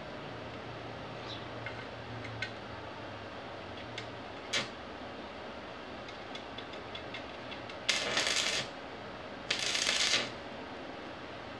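Electric arc welding on a broken corner of a metal chair frame: two short crackling bursts of the arc, each under a second, about eight and nine and a half seconds in. A few faint clicks come before them.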